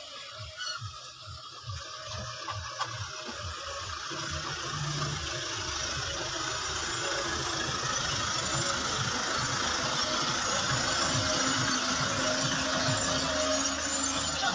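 Tractor engine running beside a hitched seed drill, growing louder over the first several seconds.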